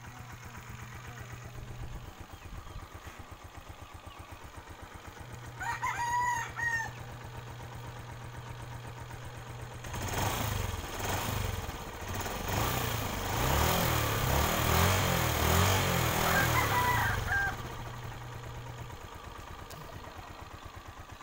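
Honda TMX 125 Alpha's single-cylinder four-stroke engine idling steadily, then revved louder and rougher for about seven seconds from roughly halfway before settling back to idle. A rooster crows once about six seconds in.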